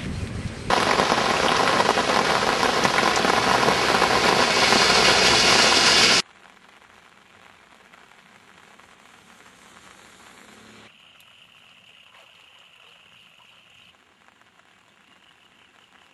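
Heavy rain, a loud steady hiss that starts suddenly just under a second in and cuts off abruptly about six seconds in. Then faint rain, with a thin steady high tone joining about two-thirds of the way through.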